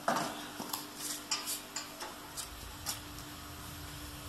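Hands handling small items on a laser marking machine's desk: a brief rustle, then a run of light, irregular clicks and taps, over a faint steady hum.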